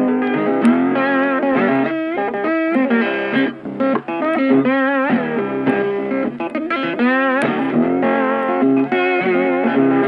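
Instrumental background music led by guitar, with a wavering melody line over held chords.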